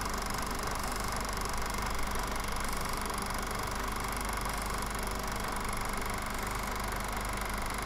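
Steady, unchanging hum with hiss, like a small machine running; no speech and no sudden sounds.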